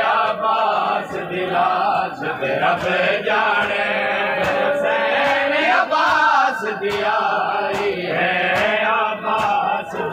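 Many men's voices chanting a noha (a Shia mourning lament) together in a slow, drawn-out melody. A steady beat of sharp slaps runs underneath.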